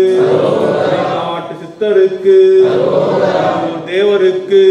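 Men's voices chanting a Hindu devotional mantra together, a short phrase repeated about every two seconds, each ending on a long held note.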